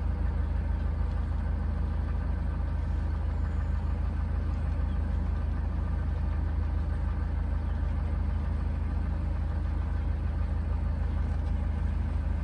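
Narrowboat's inboard diesel engine running steadily while the boat cruises along the canal: an even, low drone.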